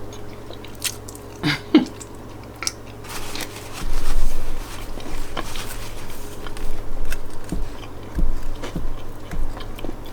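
A person biting and chewing food close to the microphone, with scattered wet mouth clicks. A louder, noisier stretch of chewing comes about four seconds in.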